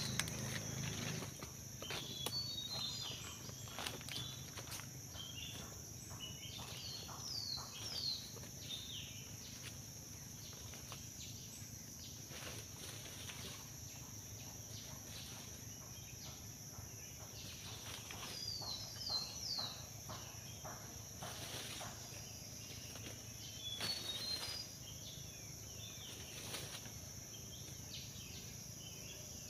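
Forest ambience: a steady high insect drone, with short falling bird chirps now and then and scattered rustles and snaps of dry leaves and twigs from someone working close to the ground.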